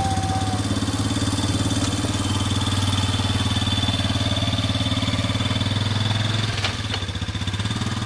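Small engine of an all-terrain vehicle running steadily at low speed close by, dropping slightly about six and a half seconds in.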